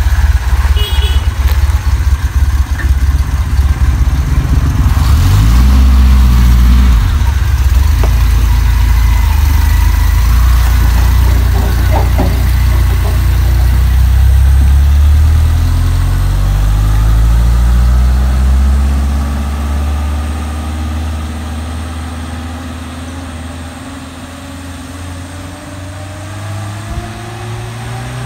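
Replica Jeep Willys engine idling roughly, then revving up about five seconds in and running steadily. Later it fades as the Jeep drives away, its pitch rising as it accelerates.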